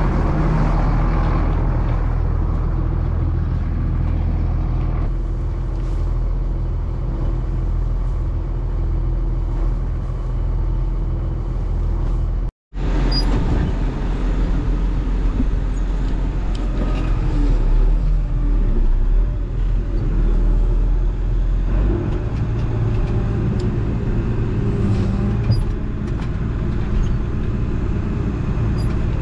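Farm tractor engine running steadily with a low hum. The sound cuts out for an instant about twelve seconds in, and the engine note shifts a little around twenty-two seconds.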